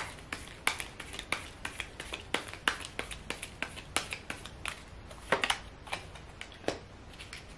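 Tarot cards being shuffled and handled by hand: a run of faint, irregular card clicks, a few a second.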